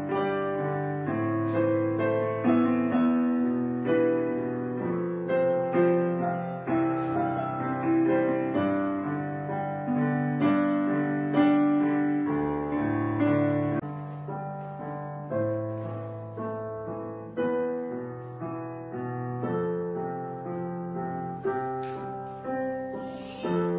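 Background piano music: a slow piano piece of struck notes and chords, each fading after it is played.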